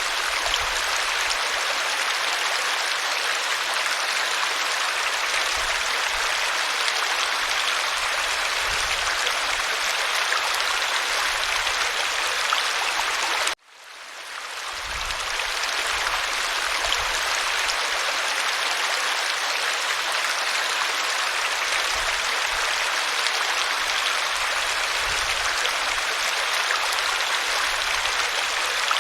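Waterfall: a steady rush of falling water. About halfway through it cuts out suddenly for a moment, then fades back in.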